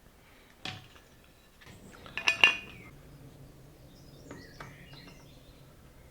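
Metal clinks and taps as a pair of compasses is handled against the cast metal router insert plate. The loudest is a quick cluster of clinks with a short metallic ring about two seconds in, followed by lighter ticks and scrapes.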